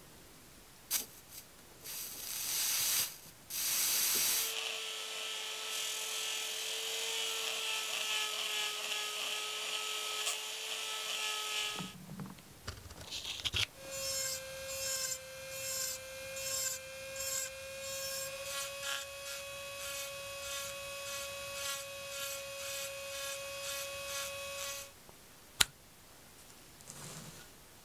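Small handheld rotary tool running with a steady high whine as its bit engraves a pattern into a brass spoon lure. It runs for about seven seconds, stops, then runs again at a slightly higher pitch for about eleven seconds, its level rising and falling in short strokes. A sharp click comes near the end.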